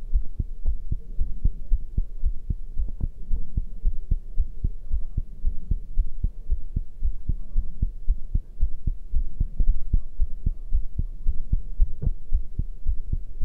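A person's heart beating fast after exercise: a quick, even run of low thumps over a steady low hum.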